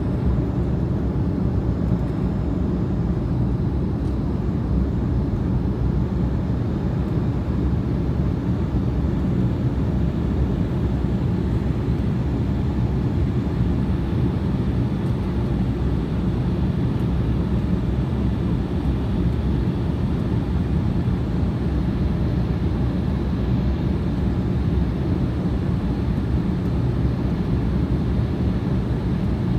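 Steady airliner cabin noise in flight: a constant low rumble of engines and rushing air, heard from inside the passenger cabin.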